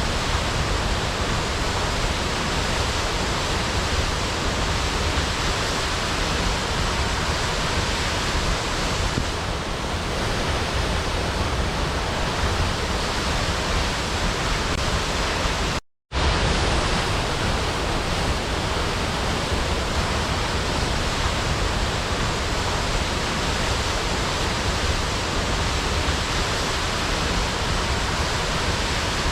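Steady rushing water, an even hiss without pitch or rhythm, like a river or falls. It cuts out for a split second a little past halfway, then carries on unchanged.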